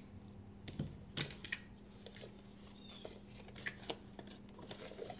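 Faint, scattered clicks and light rustling as a small knife box and its packaging are handled and opened, over a faint steady hum.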